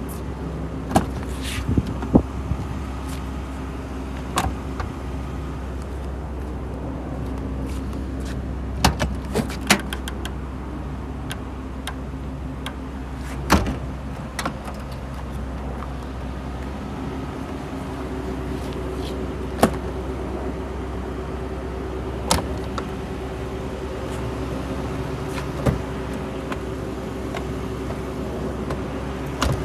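The doors, trunk lid and latches of a W140 Mercedes-Benz S600 being handled: about ten separate sharp clicks and knocks over a steady low hum.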